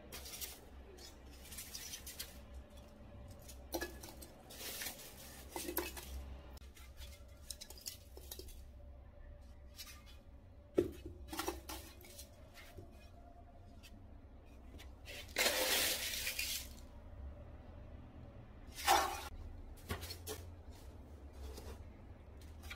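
Faint, scattered clinks and knocks of terracotta clay pots being handled during repotting, with a scraping rustle lasting about a second a little past the middle and a shorter one a few seconds later.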